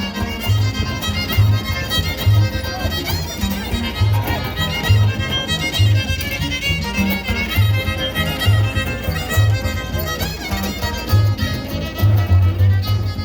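Huasteco string trio playing an instrumental passage of a son huasteco: a violin carries the melody over strummed jarana and huapanguera, with a steady deep bass beat.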